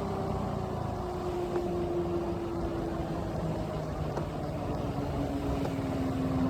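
Triumph Scrambler 400X's single-cylinder engine off the throttle, the bike slowing with a steady, slowly falling engine note over wind and road noise.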